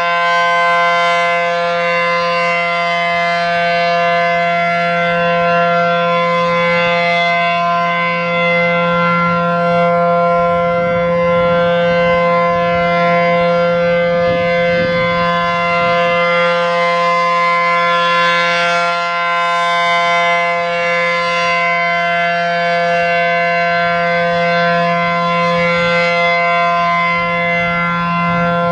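A.C.A. P-10 outdoor warning siren sounding a loud, steady Full Alert tone, its pitch held level without rising or falling.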